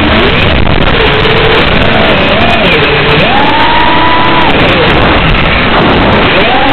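Brushless motors of an FPV quadcopter whining, the pitch rising, holding and dropping again and again as the throttle is punched and cut, under a steady heavy hiss.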